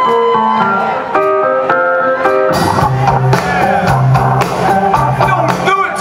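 Live rock band playing: held chords for the first two and a half seconds, then the bass and drums come in heavily and the full band plays on.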